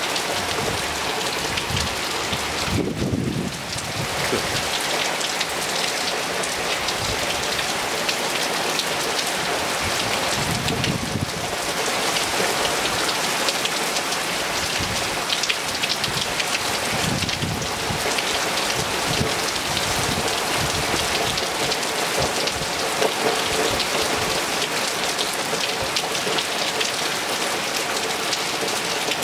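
Hard rain pouring onto brick paving and a swimming pool: a steady dense hiss of countless drops splashing, with a few brief low rumbles.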